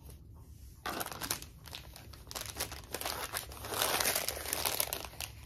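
Clear plastic packaging bag crinkling as a phone case is handled and slid into it. The crackling starts about a second in and is heaviest near the end.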